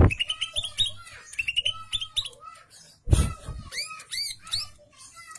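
Male green leafbird (cucak ijo) singing: quick runs of high chirps and short arching whistled notes, with a loud harsh burst about three seconds in.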